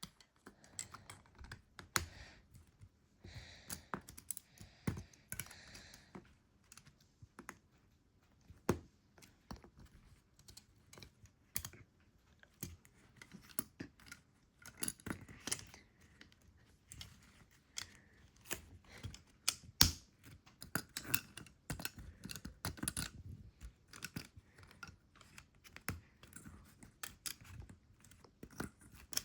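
LEGO plastic bricks being handled and snapped together: irregular sharp clicks and taps, with a brief rustle a few seconds in.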